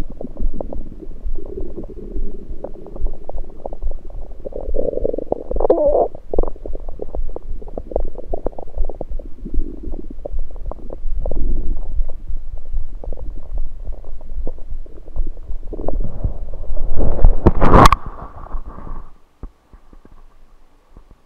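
Stomach gurgling picked up by an electronic stethoscope on the belly: irregular bubbly gurgles of liquid and air moving through the gut. A louder gurgle comes about 17 seconds in, then the sound dies away to quiet near the end.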